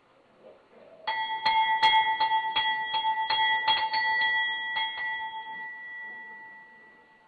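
Temple hand bell rung for the aarti: about a second in, a run of quick strikes, roughly three a second, rings for about four seconds. The strikes then stop and the bell rings on, fading away.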